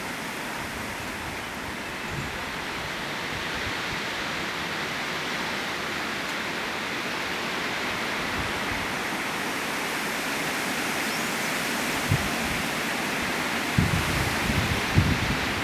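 Strong wind blowing, a steady rushing noise that slowly grows louder. Low thumps of wind buffeting the microphone come about twelve seconds in and several times near the end.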